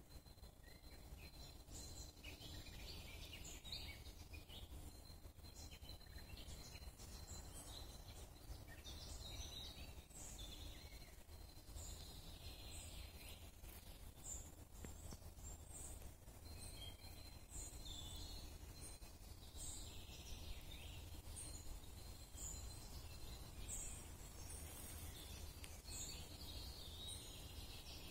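Faint woodland birdsong: several birds chirping and repeating short high notes, over a steady low rumble, with a thin steady high tone running through much of it.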